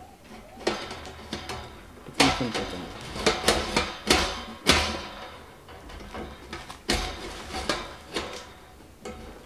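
Metal clanks and rattles of a portable barbecue grill's wire-mesh grate being handled and shifted on its steel body. Irregular sharp knocks come in groups with short pauses between them.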